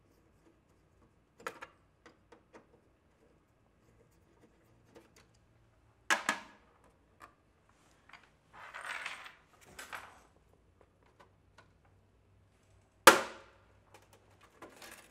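Screwdriver clicking on rusted screws in a drinking fountain's sheet-steel cabinet, then sharp metal knocks and a rasping scrape as the rusted lower cover is worked loose. The loudest sound is a single sharp knock with a short ring near the end.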